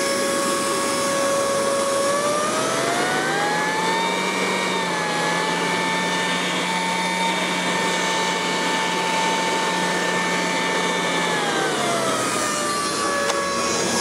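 Chinese diesel air heater running, its fan whining over a steady rush of air. The whine rises in pitch about two seconds in, holds there, then falls back near the end as the fan speed changes.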